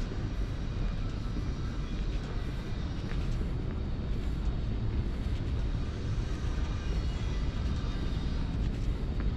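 Steady low rumble of airport terminal ambience, the hum of building ventilation, with faint footsteps ticking about twice a second as someone walks along a hard stone floor.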